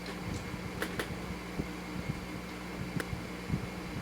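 A steady mechanical hum with a few scattered sharp metallic clicks: hand tools at work on a motorcycle's oil drain bolt as it is fitted with a new copper crush washer and tightened.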